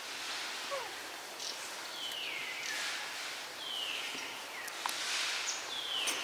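Forest ambience: an animal call that sweeps down in pitch, repeated about every two seconds over a steady high hiss.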